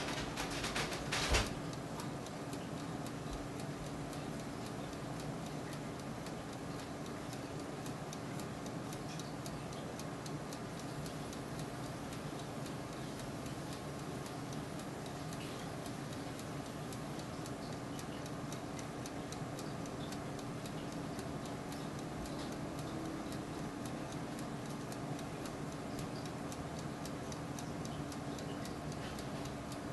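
Turbo convection oven running with its fan humming steadily, under continuous light ticking and crackling from the cooking pork chops or the oven itself. A short louder burst of crackles comes about a second in.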